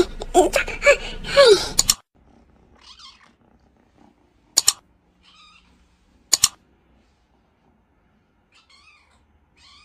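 A cat makes a quick run of short, loud whining calls, ending in a falling wail about two seconds in. After that a kitten gives a few faint, high mews. Two sharp clicks sound about two seconds apart.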